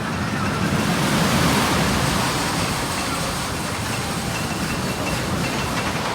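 Steel roller coaster train running along its track with a steady rushing roar that swells about a second in.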